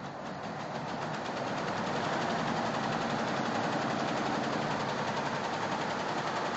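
Computerized embroidery machine stitching at speed, a rapid, even mechanical clatter of the needle strokes. It builds up about a second in, runs steadily, then stops at the end.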